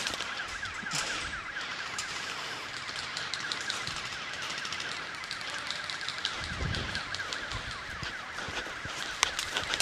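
A rapidly repeating warbling electronic tone, like an alarm or siren, with low thumps of movement from about six and a half seconds in.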